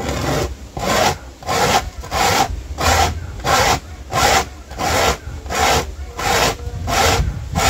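Dry ear of corn rasped up and down a homemade grater of perforated metal sheet on a wooden board, grinding the kernels into coarse corn meal. Steady, even rasping strokes, about one and a half a second.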